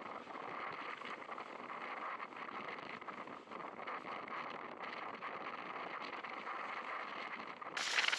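Water rushing and splashing along the hull of a Hobie Adventure Island sail kayak running fast through rough chop, with wind buffeting the microphone; a steady, fairly quiet noise. A brighter, louder hiss comes in near the end.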